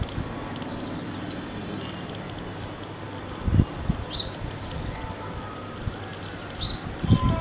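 Steady outdoor background noise, with two short high chirps and a couple of low thumps.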